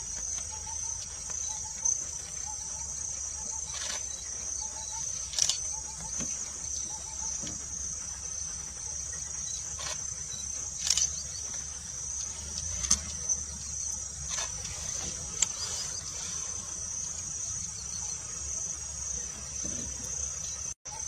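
Steady high-pitched chirring of insects, a nature background ambience, with a few short sharp clicks scattered through it.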